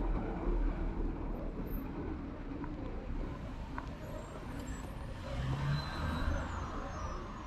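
Street traffic: a steady low rumble of motor vehicles, with one passing a little louder about five to six seconds in.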